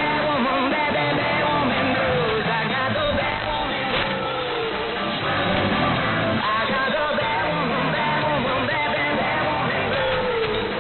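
A rock song with singing and guitar, heard over an AM shortwave broadcast, so it sounds narrow and muffled, with no treble above about 4 kHz.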